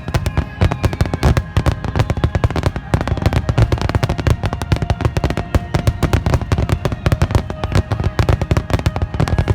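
Fireworks finale barrage: a dense, continuous rapid-fire string of firework bursts and booms, many per second, without a break.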